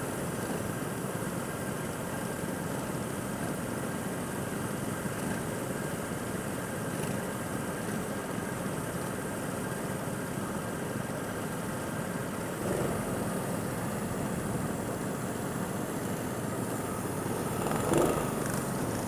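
Go-kart engine running steadily while the kart is driven, with a brief louder moment near the end.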